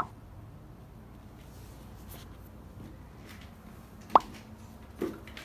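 Two short, sharp clicks about four seconds apart, the second the louder, with a fainter knock near the end, against a quiet room.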